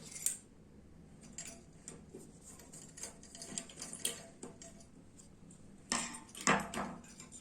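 Small metal parts of a clothes iron clicking and clinking as its thermostat is taken off, with a louder cluster of clicks about six seconds in.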